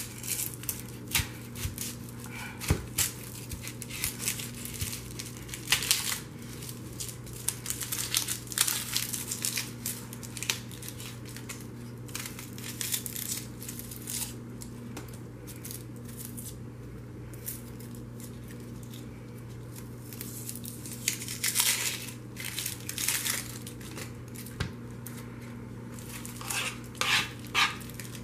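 Dry, papery onion skin crinkling and tearing as a white onion is peeled with a paring knife, in irregular crackles, over a steady low hum.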